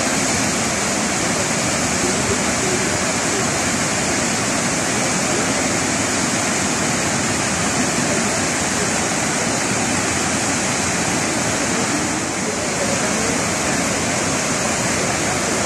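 Water rushing steadily down the gated spillway of a full hydropower reservoir dam, which is spilling over.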